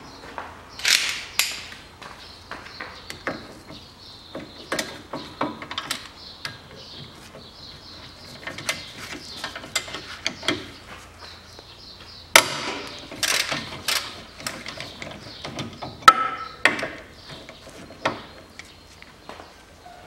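Socket ratchet wrench on a long extension undoing the 17 mm bolts of a front brake caliper bracket: irregular ratchet clicking mixed with sharper metal clanks, the loudest a short ringing clank late on.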